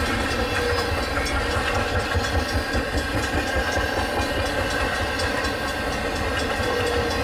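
Diesel locomotive engine of a freight train running with a steady, even drone and deep rumble.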